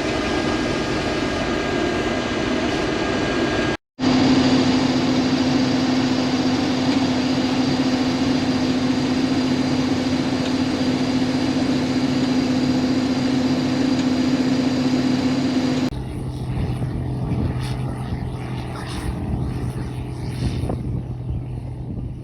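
Combine harvester running steadily in the wheat field, a constant machine drone with a steady hum. It drops out for a moment about four seconds in, comes back with a strong hum, and about sixteen seconds in shifts to a lower, quieter hum.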